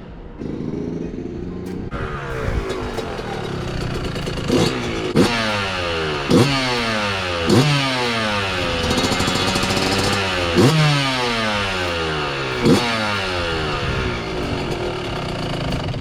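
Yamaha YZ125's 125cc two-stroke single-cylinder engine running on its first run after a rebuild, blipped sharply about six times, its pitch falling away after each blip.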